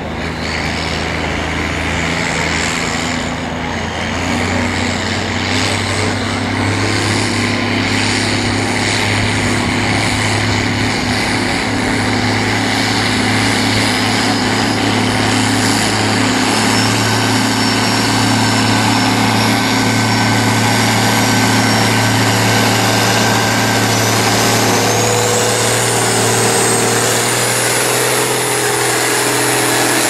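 Case Agri King 1175 farm tractor's diesel engine running hard and steady under full load as it pulls the weight sled. A thin high whine climbs in pitch over the last few seconds.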